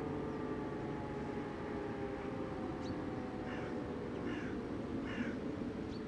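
E57 motor sirens winding down at the end of a fire-alarm tone, their pitch sinking slowly. About three and a half seconds in, a bird gives three short harsh calls, just under a second apart.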